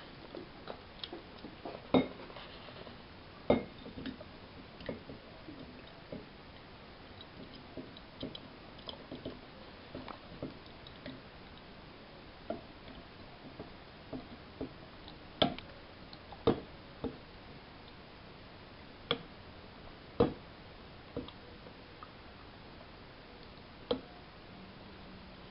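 Irregular sharp clinks and knocks as a stainless steel pot and a wooden spoon touch a glass jar while loquats in syrup are poured and spooned into it, with faint drips of syrup between them.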